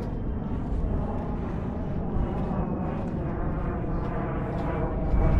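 A steady engine drone with an even hum over a rushing noise, like a distant aircraft or motor passing.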